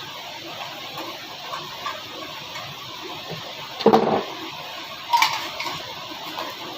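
Two sharp knocks about a second apart over a steady background hiss; the second rings briefly.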